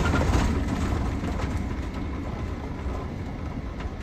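Van driving on a gravel road, heard from inside the cab: a steady low rumble of tyres and engine that eases slightly over the first couple of seconds, with a few faint ticks.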